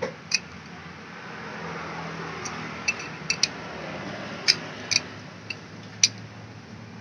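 Sharp metallic clicks and clinks from a scooter's centrifugal clutch shoe and carrier plate being handled, the shoe fitted over its pivot pin and rocked, some clicks in quick pairs. The shoe sits loose on the pin, the play that lets the clutch make this noise.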